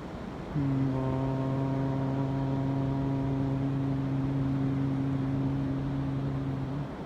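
A man chanting a mantra, one long low note held on a single pitch for about six seconds, starting about half a second in. Its brighter overtones fade partway through. Beneath it runs a steady wash of wind and surf.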